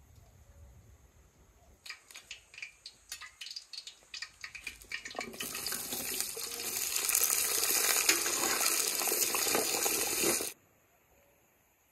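Cut potatoes frying in hot oil in a cauldron: scattered crackling pops, then a dense, loud sizzle as the potatoes are tipped in from a colander and stirred. The sizzle cuts off suddenly near the end.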